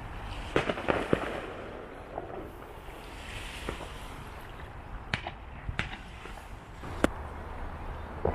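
A fireworks display: irregular sharp bangs, a quick cluster of three about a second in and then single ones around five, six and seven seconds in, over a steady background hiss.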